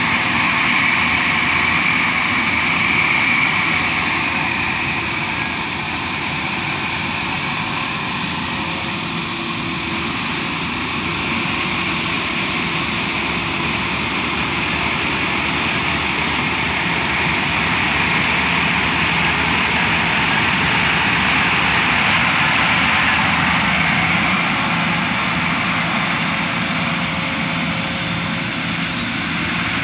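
Yanmar AW6120 rice combine harvester running steadily as it cuts and threshes standing rice: a continuous diesel engine drone mixed with the whirr of its cutting and threshing machinery.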